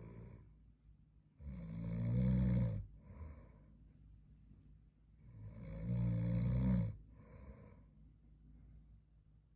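A man snoring in his sleep: two long, loud snores about four seconds apart, each growing louder as it goes, and each followed by a short, softer exhaled puff.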